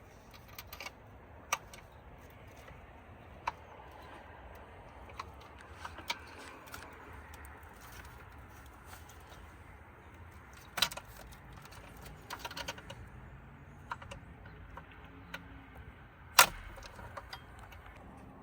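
Metal hand tools and parts clinking and tapping now and then during work on a pickup's engine, with one sharper clank a little past 16 seconds in.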